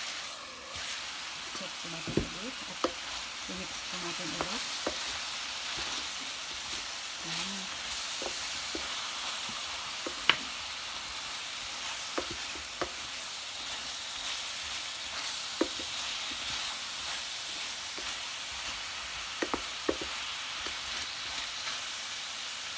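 Pork and chicken pieces sizzling in a steel frying pan while a wooden spatula stirs them, with scattered sharp clicks of the spatula against the pan.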